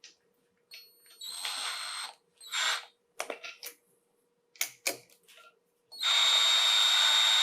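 Cordless power screwdriver driving the wall-box screws that hold a light switch: two short bursts of the motor whining, a few clicks of handling in between, then a longer steady run from about six seconds in as the screws are tightened down.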